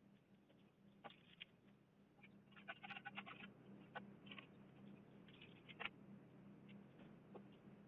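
Near silence: a faint steady low hum with scattered faint clicks and taps, a quick run of them a few seconds in.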